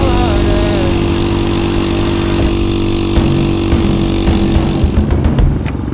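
Honda CT70 Trail 70 minibike's small four-stroke single-cylinder engine running steadily while being ridden. About five seconds in the steady note breaks up into a rougher sound with a string of sharp clicks.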